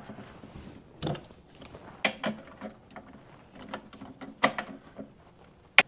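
Irregular small clicks and clatter of hand tools and wire as a wire is fastened into a 12-volt power supply's terminal, with a sharp click near the end.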